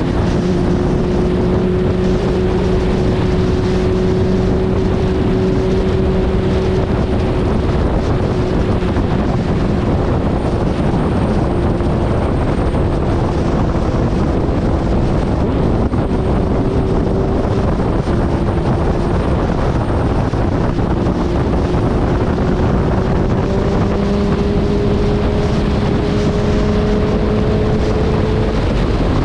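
Suzuki Hayabusa's inline-four engine running at a steady pitch under way, heard from on the bike with heavy wind rush over the microphone. The engine note rises a little in the last few seconds.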